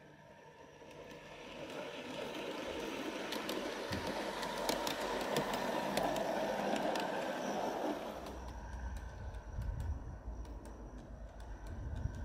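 Pair of Accucraft County Donegal model railcars running on garden railway track: wheels rolling with clicks over the rail joints, growing louder as they pass close by. About eight seconds in the sound changes abruptly to a deeper rumble with a few more clicks.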